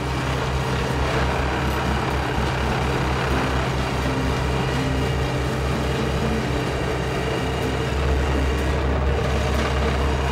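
Heavy diesel machine engine running: a steady low rumble with a fast, even pulse, a little louder about eight seconds in.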